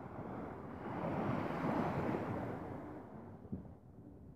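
Small sea waves washing on a beach, the wash swelling and then dying away about three seconds in, with some wind rumble on the microphone.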